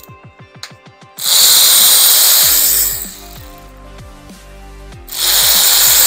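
A power tool driving a socket on a timing-chain guide bolt of a VW 2.0T TSI engine, run in two bursts: one of about two seconds just over a second in, and another starting about five seconds in.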